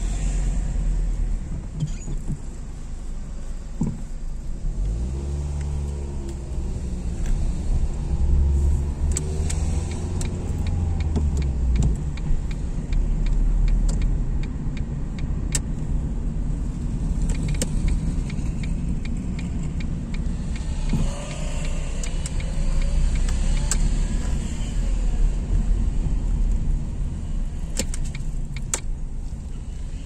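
Car engine and tyre noise heard from inside the cabin, a steady low rumble, with the engine pitch rising twice, about five seconds in and again about twenty seconds in, as the car accelerates. Scattered sharp ticks come through in the middle.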